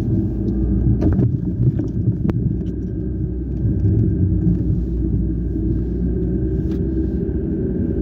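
Inside a car driving on a snow-covered road: a steady low rumble of engine and tyres, with a few light clicks.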